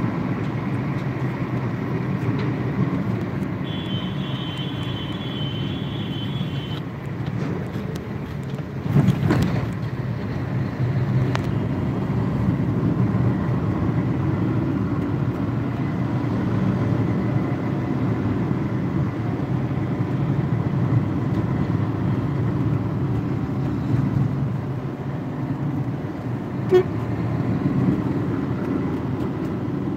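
Road traffic heard from inside a moving car: a steady rumble of engine and tyres. About four seconds in, a high-pitched vehicle horn sounds for about three seconds. There is a loud thump about nine seconds in and a short sharp knock near the end.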